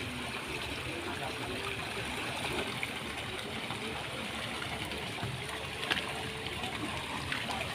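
Steady splashing of warm hot-spring water pouring from spouts into a pool, with the water stirred by a swimmer moving through it.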